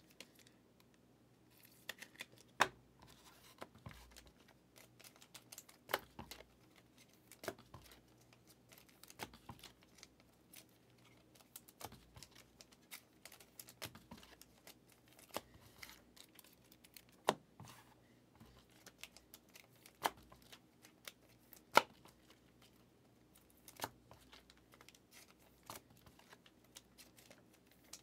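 Trading cards being handled and sorted: quiet rustling broken by scattered sharp clicks and snaps every second or two.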